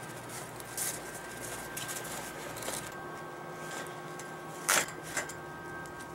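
Footsteps in snow, irregular at roughly one a second, the loudest near the end, over a steady hiss and faint hum.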